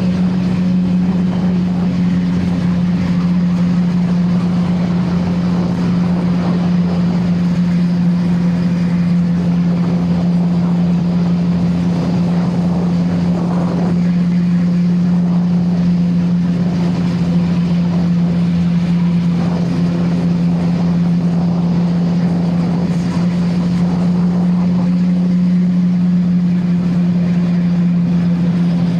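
CFMoto 675NK's inline three-cylinder engine with its stock exhaust, running while riding at a steady, unchanging pitch, with wind noise on the microphone.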